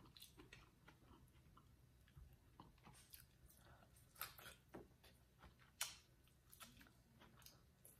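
Faint chewing and biting: a person eating a piece of boiled corn on the cob, with a few short mouth smacks and clicks, the clearest around four and six seconds in.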